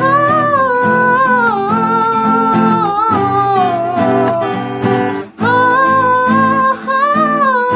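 A woman singing a slow melody with long held notes while strumming an acoustic guitar, both breaking off briefly about five seconds in before carrying on.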